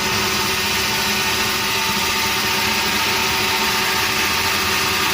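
Sawmill machinery running steadily: a constant engine-driven drone with a steady hum, no rise or fall in level.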